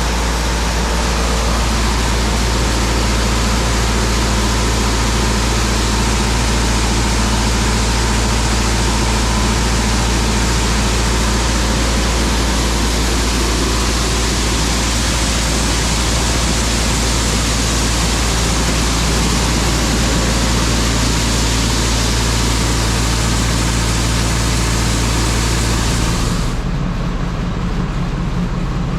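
Farm machine's engine running steadily, a low hum under a loud, even rush of noise. About 26 seconds in, the high hiss cuts off abruptly and the low engine note shifts.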